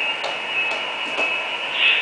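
Model train locomotive running on the layout track: a steady high motor whine with a few light, irregular clicks.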